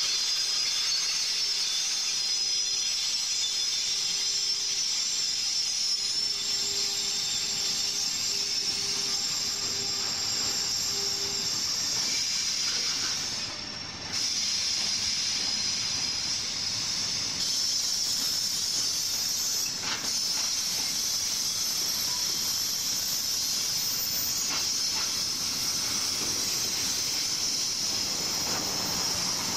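Freight train rolling past at a steady pace, its wagons' wheels on the rails making a continuous hiss. A steady tone sits under it for the first ten seconds or so, and the sound drops briefly about halfway through.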